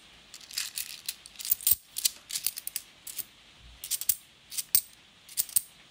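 A stack of 50p coins being thumbed through in the hand: irregular clusters of sharp metallic clicks and clinks as the coins slide and tap against one another.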